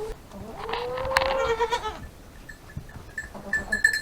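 A goat bleating once, a drawn-out bleat of about a second and a half, with a brief click in the middle of it. A faint high-pitched peeping tone comes in near the end.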